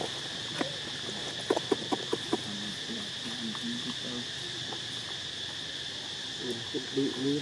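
Steady forest insect chorus, a constant high buzz. A quick run of sharp clicks comes about a second and a half in, and faint wavering vocal sounds come twice, the second near the end.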